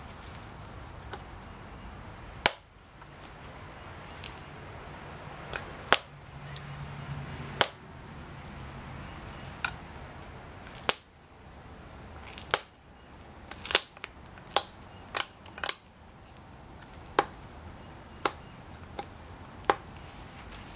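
Pressure flaking of a Texas tab flint blade with a copper-tipped flaker: sharp clicks as flakes snap off the edge, about twenty at irregular intervals, coming thickest a little past the middle.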